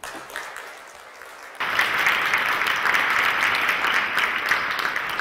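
An audience applauding. The clapping starts light and grows much louder about a second and a half in.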